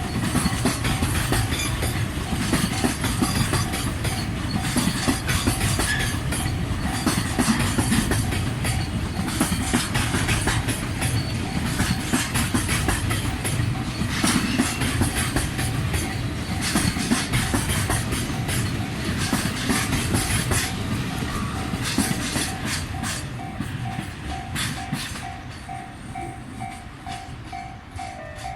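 Freight wagons of a 16-car train rolling slowly over a level crossing, wheels clacking over the rail joints, while the crossing's warning bell rings steadily. The train noise fades over the last few seconds and leaves the bell.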